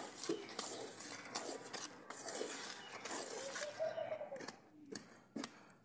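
Metal spatula scraping and stirring granulated sugar into thick khoya in a large metal karahi: gritty scrapes and clicks, fading to a few scattered clicks in the last second or so. A short rising-then-falling call sounds about three seconds in.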